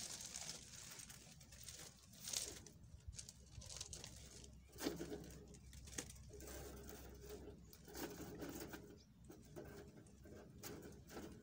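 Faint rustling and scraping of wire mesh being pressed and folded over a bed of gravel chippings, with a couple of sharper clatters. A bird cooing low in the background for a few seconds around the middle.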